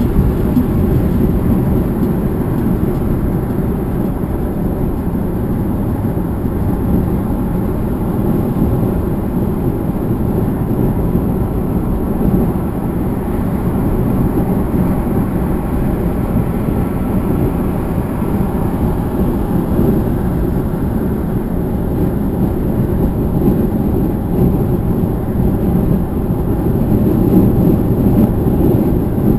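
Steady low rumble of tyre, road and engine noise inside a car cabin while driving at highway speed.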